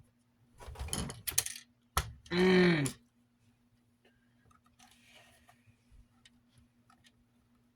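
Small plastic clips and fan parts clicking and rattling as they are handled and pushed into place. About two and a half seconds in comes a short, loud, pitched groan of frustration.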